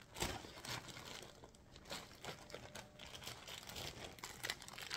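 Small plastic zip-top bags crinkling and rustling as they are handled, in irregular crackles with the sharpest one about a quarter second in.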